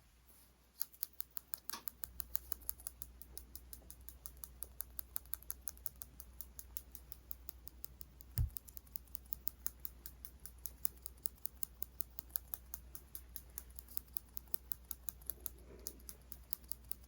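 Scissors snipping rapidly and steadily close to the microphone, a string of short crisp clicks about five a second, heard more on the left side. One dull low bump about halfway through.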